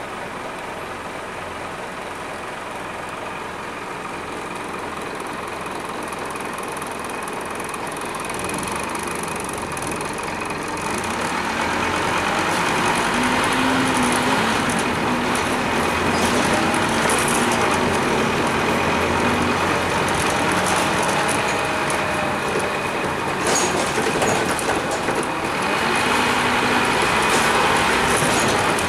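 Scania N230UD double-decker bus's diesel engine idling while stopped, then getting louder as the bus pulls away and accelerates after about ten seconds, heard from inside the lower deck. A thin steady high whine runs through it.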